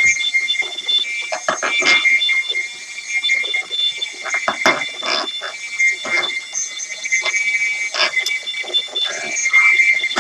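Electronic music with a shrill, alarm-like pair of high held tones that break off and return several times, over irregular, choppy percussive hits.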